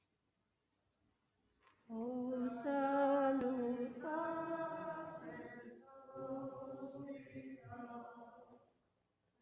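Unaccompanied chant-style singing in long held notes. It begins about two seconds in, after near silence, and stops just before the end.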